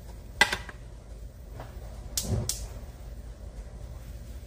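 Kitchen handling knocks: one sharp, loud knock about half a second in, then two duller knocks close together near the middle, as a cardboard tube of canned biscuit dough is handled and set on the counter.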